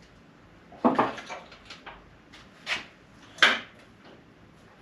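Hydraulic cart loaded with an engine cradle being shoved on its casters, giving a few clunks and knocks with light rattles between them.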